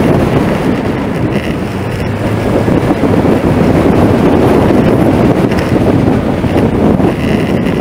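Wind buffeting the microphone of a camera mounted on the outside of a moving vehicle: a loud, steady rush of air with vehicle and road noise mixed in.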